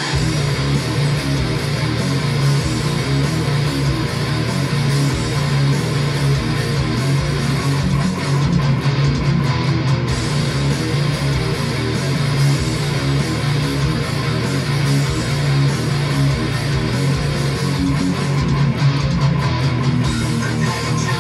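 Distorted electric guitar playing a heavy, low-tuned riff without a break: a 1972 Gibson Les Paul Custom tuned down to A#, played straight into a Boss Katana Mini amp.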